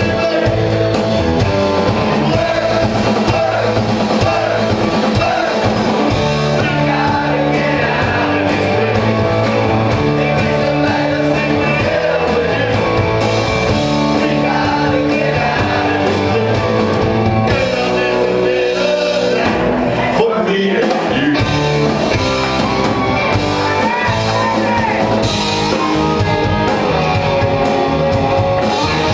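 Live rock band playing: a male singer into a microphone over guitars and a drum kit, heard from among the audience.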